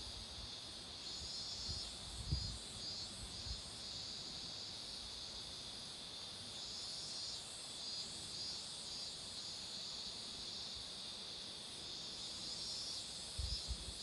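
Summer cicadas buzzing in a steady, high chorus that swells and fades in a pulsing rhythm. A few low thumps sound around 2 seconds in and near the end.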